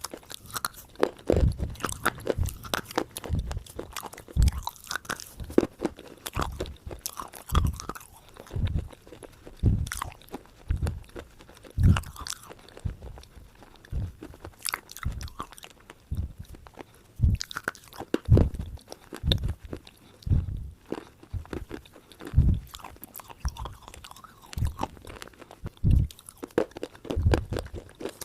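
Crunchy food being bitten and chewed, with a run of loud crunches roughly once or twice a second, some sharper and louder than others.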